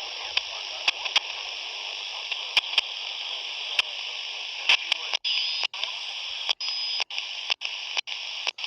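Open-squelch static hiss from a Retevis RA79 (Quansheng UV-K5) handheld's speaker while it is tuned to the 27 MHz CB band with no station coming through, with scattered sharp crackles. From about five seconds in, the hiss cuts out briefly about twice a second.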